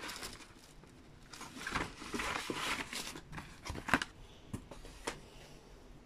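Cardboard reel-to-reel tape boxes and packing being handled: scraping and rustling, with a sharp knock about four seconds in.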